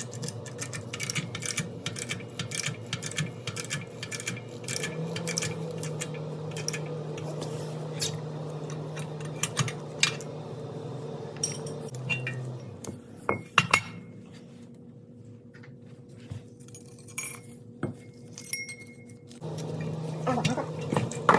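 Repeated light metallic clinks and taps, metal parts or tools knocking together, with a few louder knocks about two-thirds of the way through, over a steady low hum.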